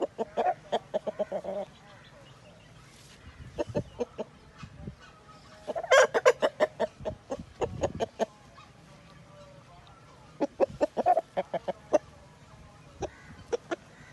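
Chickens clucking: three runs of quick, rapid clucks, at the start, about six seconds in and about ten and a half seconds in, with scattered single clucks between them.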